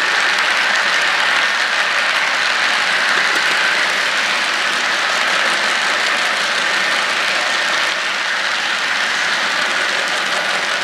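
Model railroad hopper cars rolling on metal track: the steady rushing rumble of many small wheels on rail, with faint fine clicking from wheels crossing track joints. The cars run empty.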